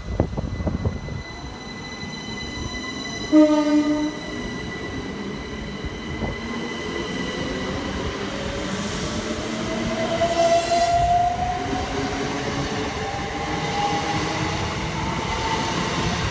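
Electric multiple-unit passenger train pulling away: a short horn toot a few seconds in, then the traction motors' whine rising in pitch as it accelerates, over steady rolling rumble.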